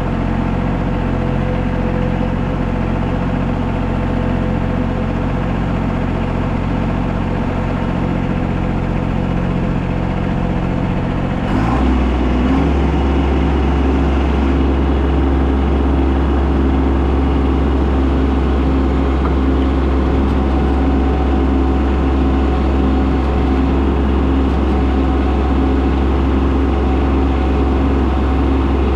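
Kubota B2301 compact tractor's three-cylinder diesel engine running steadily. About eleven seconds in, the engine note drops lower and gets a little louder, then holds steady.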